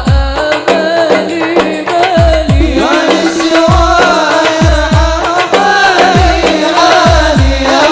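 Sholawat devotional song: singing accompanied by hand drums, whose deep strokes drop sharply in pitch and fall in an even rhythm.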